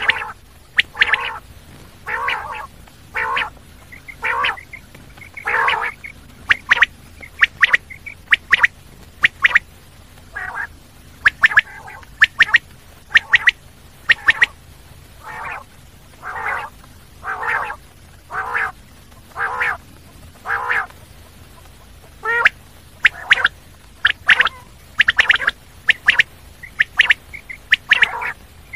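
Common quail calling over and over, with short calls repeated about once a second, some coming in quick pairs or runs.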